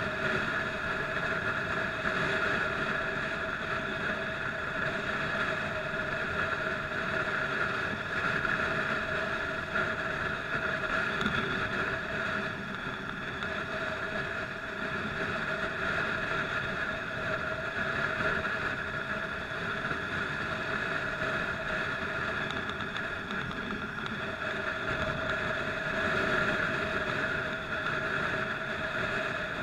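Motorcycle engine running steadily at freeway cruising speed, its pitch holding almost constant, with wind rushing over the helmet-mounted microphone.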